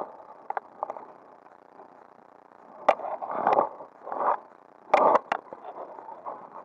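Close handling noise from a fly fisherman's rod, line and jacket: a few sharp clicks and short rustling scrapes, loudest around three to five seconds in.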